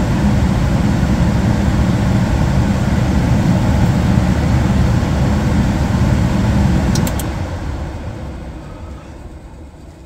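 Gas furnace running steadily, its blower loud and low, working normally with no fault code after the limit switch problem was dealt with. About seven seconds in there are a few clicks as the door safety switch is let go, and the furnace shuts down, its blower winding down and fading away.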